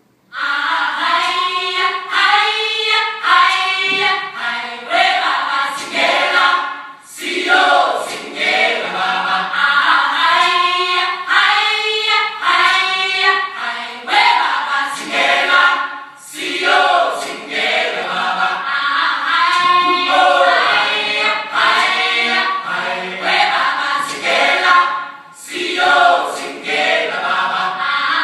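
A choir singing in phrases, starting suddenly and pausing briefly about seven, sixteen and twenty-five seconds in.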